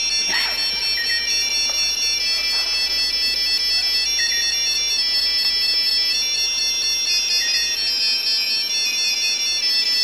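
A chorus of mobile phones ringing together with custom ringtones: many high, held tones overlap into a steady chord that changes every second or so. A short chirp cuts in now and then.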